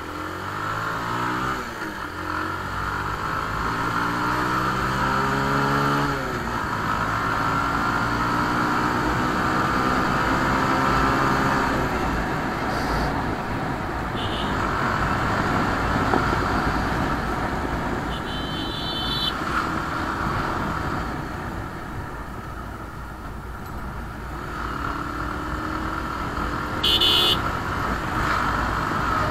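Bajaj Pulsar single-cylinder motorcycle engine accelerating through the gears, its pitch climbing and dropping back at each shift, about two, six and twelve seconds in, then a steady rush of wind noise at cruising speed. Vehicle horns beep briefly several times in the second half, and the engine climbs in pitch again near the end.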